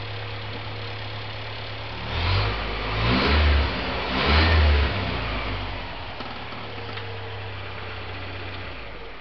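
International Harvester Scout engine idling, blipped three times in quick succession about two to five seconds in, then settling back to idle and switched off near the end.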